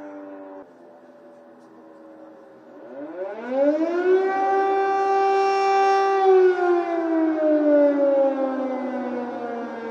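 Air-raid siren wailing an alert. A falling tone cuts off under a second in. About three seconds in, the pitch rises steeply, holds steady for a few seconds, then slowly sinks.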